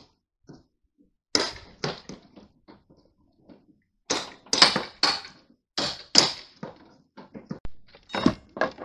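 Sheet-metal brake bending metal trim: a string of sharp metallic clanks and bangs at irregular intervals as the handle is worked and the long metal strip flexes and rattles.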